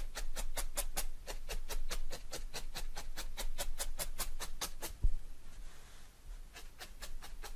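Barbed felting needle stabbed rapidly through black wool batting into a foam mat: a quick, even run of ticks about eight a second. The run stops about five seconds in with one low thump, and a few more pokes come near the end.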